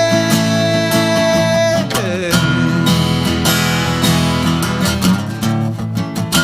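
Live band playing an instrumental break, with acoustic guitar strumming and a long held lead note that bends downward about two seconds in.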